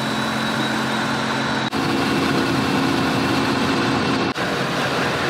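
Dual-motor onboard electric air compressor running steadily while filling a 38-inch tire through an air chuck, over the vehicle's idling engine. The sound breaks briefly and shifts slightly twice, about two and four seconds in.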